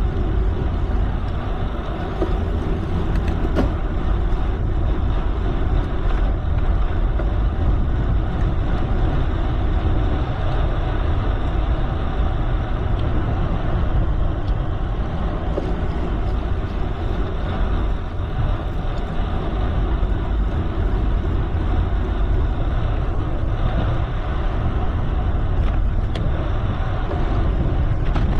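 Steady rushing noise of a moving bicycle ride: wind on the camera microphone, heaviest in the low rumble, with tyres rolling on the road.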